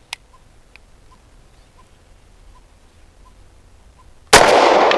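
A Grand Power K100 9mm pistol fires one shot of Federal Champion 115-grain ammunition about four seconds in: a sharp, loud report with a long fading echo. Before it, the range is quiet apart from a faint click at the start.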